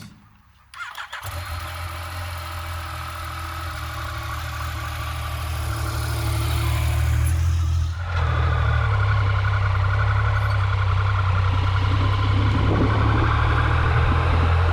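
Yamaha MT-09 motorcycle's three-cylinder engine starting about a second in, then running steadily and growing gradually louder, with a brief drop about eight seconds in.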